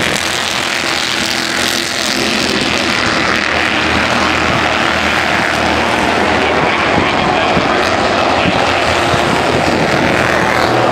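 Several Bandolero race cars' small engines buzzing at racing speed as the pack laps the short oval, a steady, loud, high-revving drone with no let-up.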